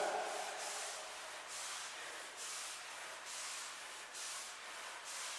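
A man breathing hard under exertion, a soft breathy hiss repeating steadily about once a second.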